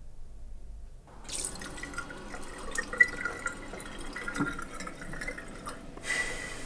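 Bathroom sink tap running, water splashing in the basin as hands wash under it, starting about a second in.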